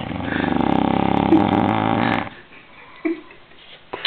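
A man snoring loudly: one long snore with a fast flutter, lasting about two seconds, then it drops away.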